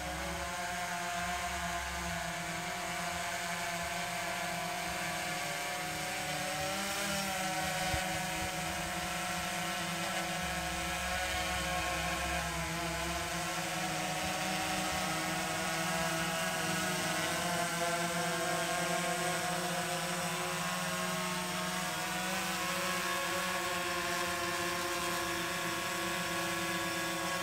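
DJI Phantom 3 Standard quadcopter's four motors and propellers whining steadily in hover, the pitch wavering slightly as the rotor speeds adjust. It grows a little louder as the drone descends toward the listener.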